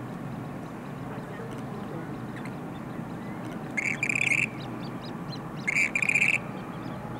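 Western grebe calling twice, about two seconds apart: each call is a short note followed at once by a longer, pulsing one. A steady low rumble runs underneath.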